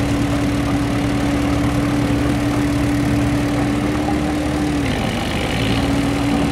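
Crawler bulldozer's diesel engine running hard and steadily while the machine churns through soft, sinking peat mud, at the high throttle this bog demands. A steady whine over the engine's low pulsing dips briefly about five seconds in, then settles back slightly lower.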